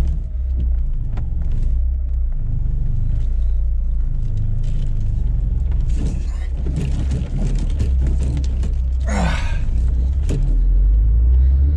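1984 Porsche 944's four-cylinder engine and road noise heard from inside the cabin while driving, a steady low rumble. A brief rising sound cuts in about nine seconds in.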